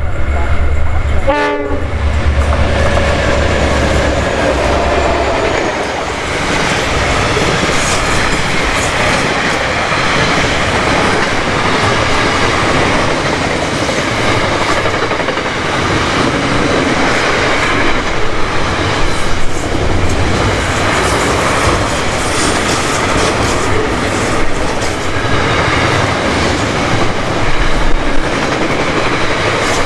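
Freight train hauled by diesel locomotives passing close by: a heavy locomotive engine note at first, then a long, steady rumble of wagons rolling past on the rails.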